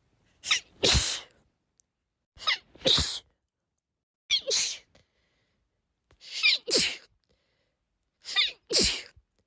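A woman in a sneezing fit, sneezing five times in a row about every two seconds. Each sneeze starts with a high-pitched gasping intake that slides upward and ends in the 'choo' burst.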